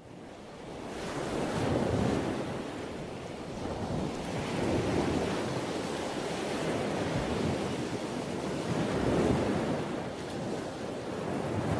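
Sea waves washing in, a rushing surf sound that swells and eases every three to four seconds.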